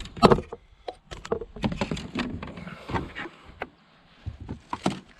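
Irregular knocks, taps and clatter of gear and a landed bass being handled in a fishing kayak, the loudest knock just after the start.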